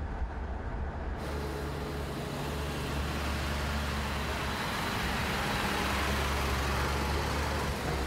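Heavy truck's engine and tyres as it drives up and passes close by: a steady low engine rumble under road noise that grows to its loudest about six to seven seconds in.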